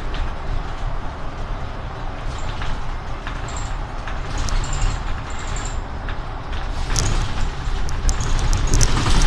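Mercedes-Benz city bus running, a steady low engine and road rumble with scattered rattles and clicks. There are short high squeaks a few seconds in, and it grows louder near the end.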